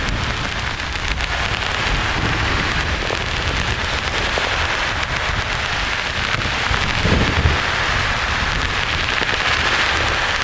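Steady rain-like hiss of white noise with low rumbles of distant thunder underneath, one swelling a little about seven seconds in.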